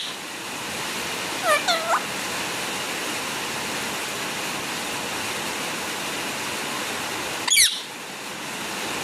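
Pet parrot calling twice: a short bending call about one and a half seconds in and a quick sweeping call near the end, over a steady hiss.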